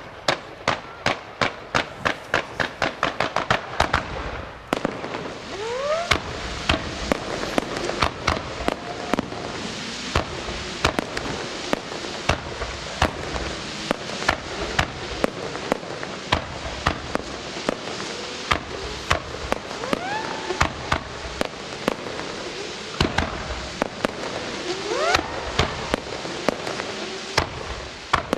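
Fireworks display. It opens with a rapid, regular run of bangs, about three a second, for some four seconds. Then it turns into dense, continuous crackling with many sharp reports, and rising whistles climb through it a few times.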